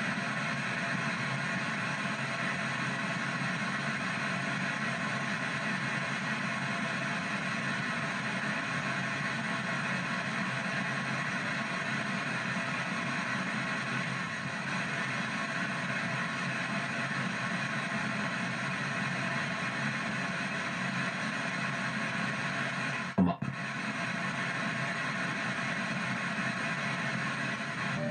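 P-SB7 ghost box sweeping through radio stations over its small speaker: steady radio static. A little before the end there is a short pop and a moment's dropout.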